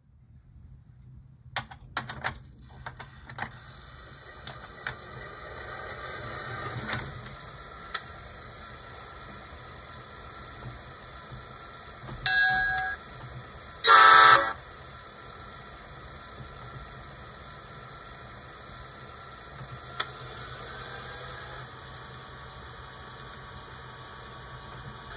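Digitrax SDXH166D DCC sound decoder playing through small cube speakers in an HO F3B locomotive chassis. After a few handling clicks, the diesel prime-mover sound builds up and runs as a steady, static-like hiss and rumble, which the owner calls garbage. A short tone comes about twelve seconds in, and a louder horn blast follows a second and a half later.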